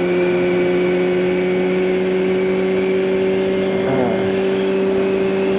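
2009 Kawasaki ZX6R inline-four engine with a Hotbodies MGP Growler slip-on exhaust, running at a steady engine speed while cruising. Its note holds an even pitch.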